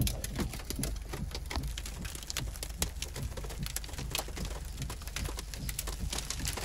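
Small ice pellets falling and ticking on a vehicle and the ground: a dense, irregular patter of sharp clicks over a low steady rumble.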